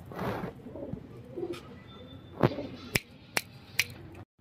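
Domestic Girebaz pigeons cooing softly, with four sharp clicks in the second half.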